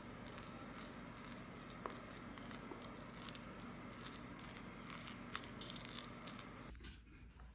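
Spatula stirring sticky cooked rice and mashed food in a bowl: faint soft squishing with small scattered clicks, over a steady low hum that stops near the end.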